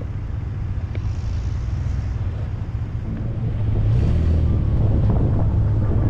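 Off-road vehicle running: a steady low engine and road rumble with some wind noise, growing louder about three and a half seconds in.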